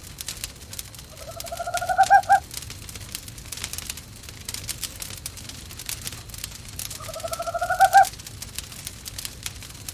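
An owl calling twice, about five seconds apart. Each call is a quick rising trill of about a second that ends in two louder notes. Fireplace crackle ticks throughout.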